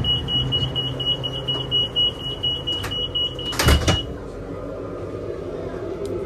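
Door-closing warning on a Fuxing high-speed train: a rapid high beeping for about three seconds, then the sliding door shuts with a loud thump a little under four seconds in. After it, the steady hum of the carriage.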